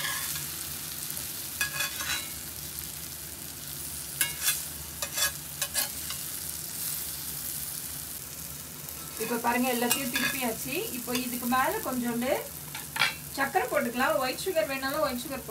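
Butter sizzling steadily in a cast-iron skillet as banana slices fry, with scattered sharp pops and clicks. From about nine seconds in, a voice is heard over the sizzle.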